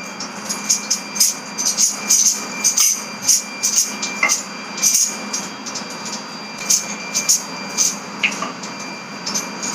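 Wooden rolling pin rolling out roti dough on a rolling board, knocking and clacking against the board about twice a second.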